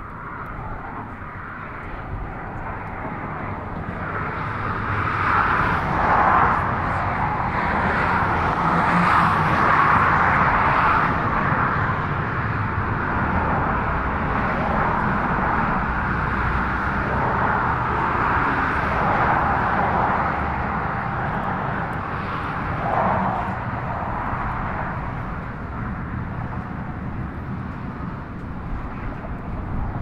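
Road traffic passing on the four-lane Hoover Dam Bypass bridge: a rushing of tyres and engines that swells over the first few seconds, stays loud for several seconds, rises briefly again about two-thirds of the way through, then eases off.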